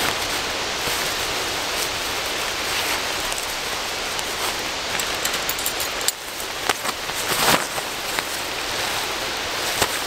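Steady, even outdoor hiss, with a few short rustles of tent fabric being handled a little past the middle.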